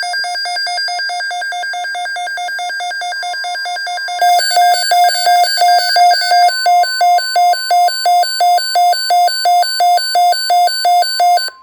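Electronic alarm beeping in a rapid, even pulse, louder from about four seconds in. Under it, the NOAA Weather Radio warning alarm tone, a steady single pitch, comes in about three seconds in.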